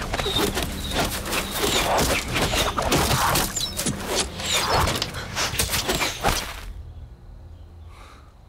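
Sword-fight sound effects: a dense, rapid run of whooshes and hits as arrows fly and strike. It stops abruptly about seven seconds in.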